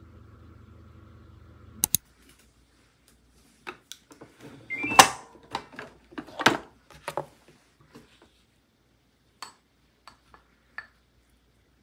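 Electric pressure rice cooker being opened: latch clicks and clacks of the lid, with a short rising beep and the loudest clack about five seconds in, then a few light taps. Before that, a steady low hum for about two seconds ends with a sharp click.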